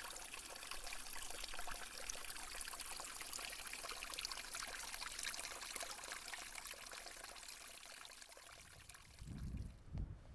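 Water trickling steadily, a fine, even patter that eases off near the end.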